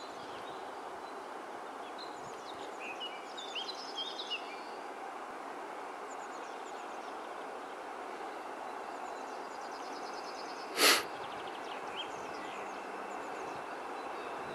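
Distant TEM2 diesel locomotive and its train approaching, a faint steady rumble under songbirds chirping and trilling. About eleven seconds in there is one short, sharp burst of noise, the loudest sound here.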